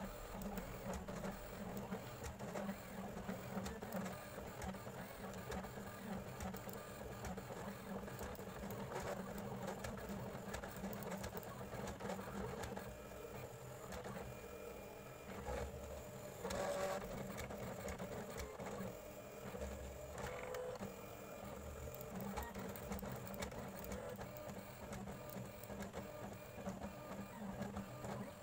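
Silhouette Curio cutting machine running as it cuts a printed sticker sheet: a continuous motor whir that shifts as the carriage and platform move, briefly louder about halfway through.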